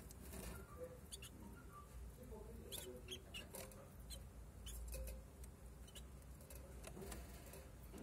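Pet canaries giving faint, scattered short high chirps and ticks in their cage.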